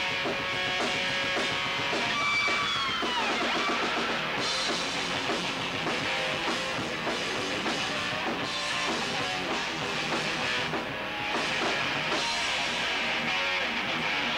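Rock band playing live, with electric guitar and drum kit, and a falling guitar pitch about two to three seconds in.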